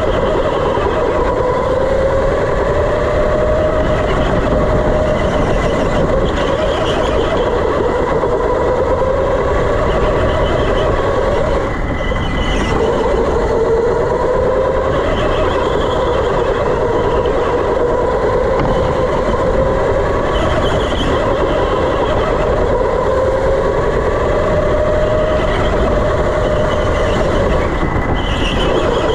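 Electric go-kart motor whining under way, its pitch rising and falling with speed through the laps and dipping briefly about twelve seconds in. Short tyre squeals come every few seconds in the corners, from front tyres pushed to understeer and skip on the smooth indoor floor.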